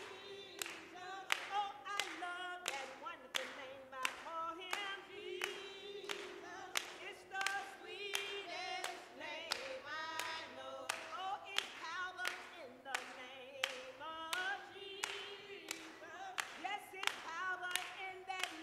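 A small group of women singing a cappella, with hand claps keeping a steady beat of about one and a half claps a second.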